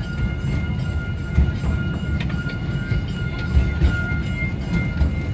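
Amusement-park ride-on train in motion: a continuous low rumble with a steady high whine and a few sharp clicks.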